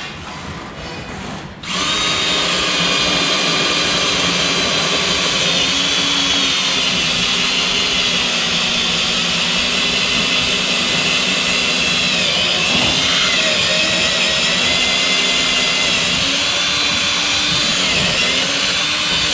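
Cordless drill boring a bolt hole through a fiberglass boat deck. It starts about two seconds in and runs steadily, its pitch dipping briefly a couple of times as the bit is loaded.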